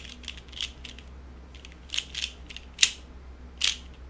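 3x3 speed cube being turned through an algorithm: a run of sharp plastic clicks and clacks as the layers turn, about eight in all. A few come in the first second, then after a pause of about a second a quicker cluster, with the loudest clack a little past the two-thirds mark.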